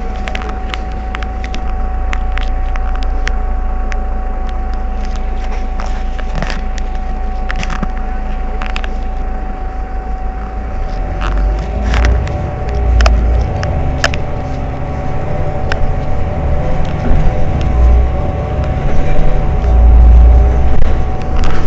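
Heuliez GX 327 city bus idling at a standstill: a steady low engine hum with a constant thin whine over it and occasional small clicks. From about halfway, heavy low rumbling swells come and go and the sound grows louder.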